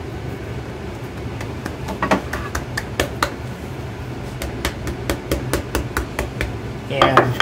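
Wooden rolling pin knocking against a marble slab and the edges of a folded block of puff pastry dough as it is squared up: a run of sharp, irregular taps, a few a second, starting about two seconds in. A steady low hum runs underneath.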